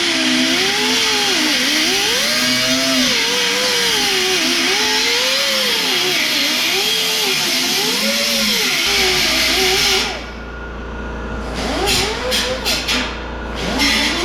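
Handheld power tool cutting sheet metal, its pitch rising and falling as it is loaded and eased off, until it stops about ten seconds in; several short bursts follow. A steady low hum starts about nine seconds in.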